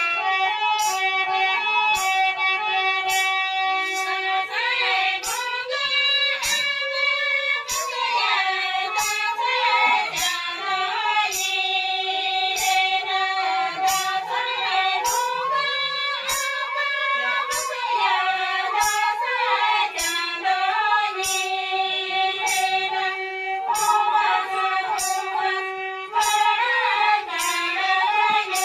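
Women singing a Santali Sohray folk song, accompanied by bamboo flute and harmonium over a steady percussive beat of about two strikes a second.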